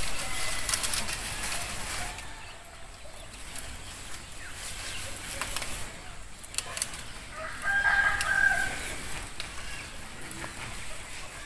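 A rooster crows once, about a second long, around two-thirds of the way through. Throughout, bean vines rustle and stems snap as flat beans are picked by hand from a bamboo trellis.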